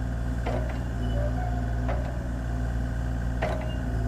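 Bobcat E35i mini excavator's Kubota three-cylinder diesel running steadily while the arm and bucket are worked. Three sharp knocks about a second and a half apart, each followed by a short whine.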